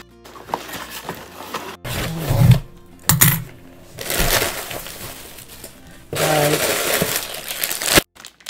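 Cardboard shipping box being torn open and a plastic-wrapped multipack of instant noodles lifted out: several spells of rustling and crinkling with a few sharp clicks and knocks, the loudest crinkling in the last two seconds.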